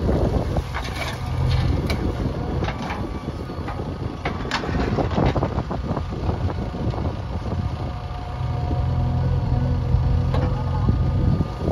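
Backhoe loader's diesel engine running steadily, with scattered knocks between about one and six seconds in. The engine hum swells again after about eight seconds.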